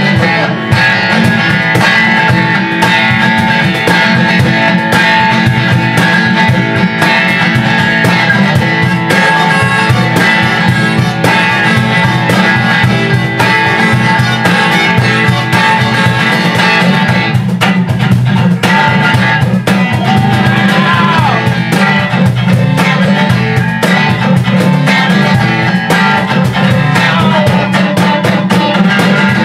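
Live acoustic duo: a guitar strummed steadily while a cajon, slapped by hand, keeps a dense beat under it.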